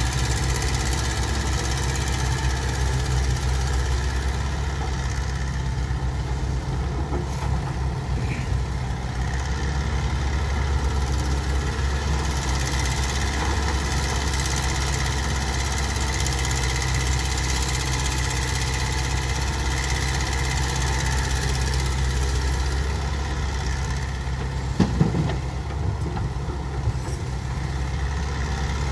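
Caterpillar hydraulic excavator's diesel engine running steadily as it digs and swings. A couple of sharp knocks come about 25 seconds in.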